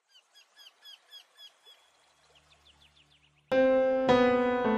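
Faint bird chirping, a short curved call repeated about three to four times a second, then a loud keyboard chord strikes suddenly about three and a half seconds in and again half a second later, its notes ringing on as intro music.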